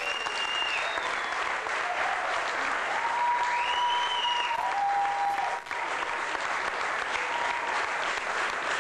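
Large audience applauding steadily, with a few drawn-out pitched calls rising above the clapping.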